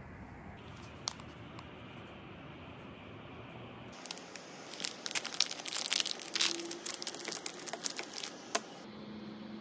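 Clear plastic packaging bag crinkling as it is opened by hand and a braided charging cable is drawn out: a few seconds of dense, sharp crackles starting about four seconds in.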